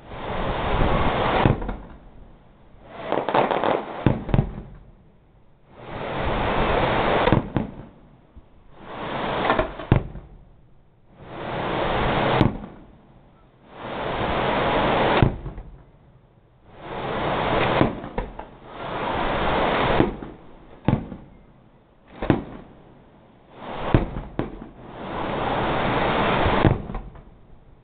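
Aerial fireworks going off in a steady run, sharp bangs mixed with surges of crackling and hissing that build up and stop every two to three seconds.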